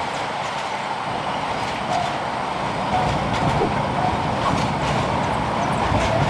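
Freight train of tank wagons rolling past: a steady rumble of steel wheels on the rails, with scattered clicks.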